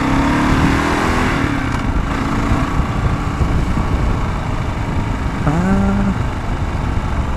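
Kawasaki KLR650's single-cylinder four-stroke engine pulling away and riding on, with wind noise rushing over the helmet-mounted microphone.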